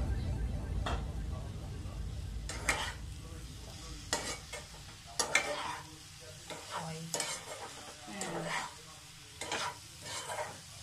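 Spatula stirring and scraping cabbage, potato and fish head in a nonstick kadai, in irregular strokes, with the food frying lightly in the hot pan.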